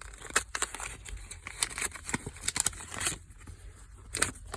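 A Pokémon card pack wrapper being torn open and handled, with a run of short crinkles and crackles that thins out after about three seconds.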